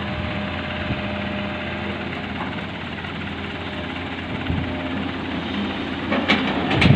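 Heavy diesel engine of earthmoving machinery running steadily, with a few sharp clanks near the end.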